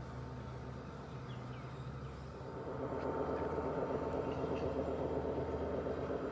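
G scale model train running on the track, a steady rolling rumble of wheels on rails with a faint motor whine. It gets louder about two and a half seconds in. Faint bird chirps sound over it.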